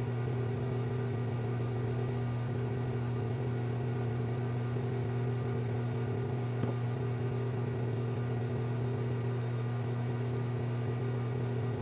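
Steady low hum of a running electric fan, even and unchanging.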